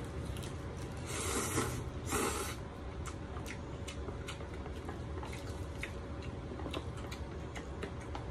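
A person slurping cold sesame-sauce noodles in two short slurps, about one and two seconds in, then chewing with a run of small wet mouth clicks.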